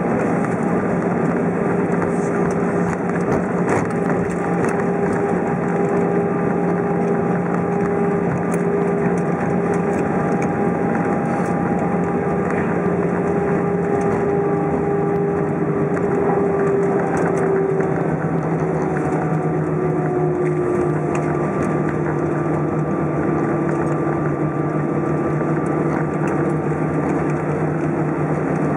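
Cabin noise inside an Airbus A320 rolling out on the runway after landing: a steady rush of engine and airflow noise with a hum and whine from the jet engines. About two-thirds of the way through, the tones slide a little lower in pitch as the engines wind down while the aircraft slows.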